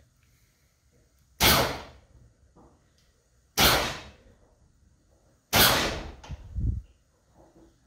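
Hydraulic suspension pump on a 1983 Buick Regal being switched on for its first test after new cylinders were fitted: three sharp hits about two seconds apart, each fading within about half a second, then a lower thump after the third.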